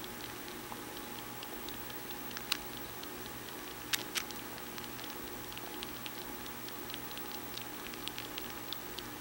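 Tabby kitten suckling on fleece bedding as if nursing: faint, irregular little sucking clicks, several a second, with a few louder ones about two and a half and four seconds in.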